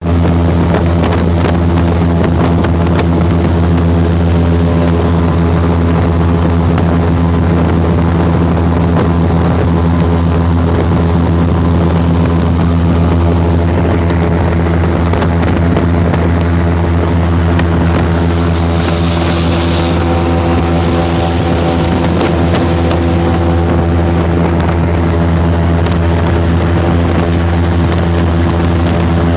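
Airboat's engine and propeller running at a steady, loud cruising drone as the boat crosses open water, with a rush of air that swells for a few seconds after the middle.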